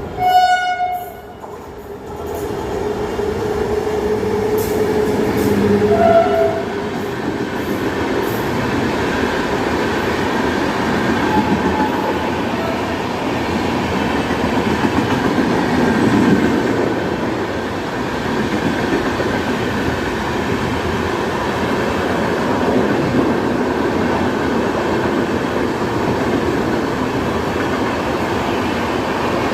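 Shatabdi Express train running through at speed, with a short horn blast at the start, then a continuous rumble and clatter of wheels on the rails.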